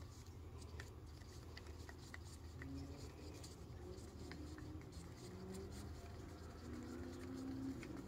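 A wooden stir stick scraping and ticking faintly against the inside of a small cup while mixing epoxy resin with colourant, over a steady low hum.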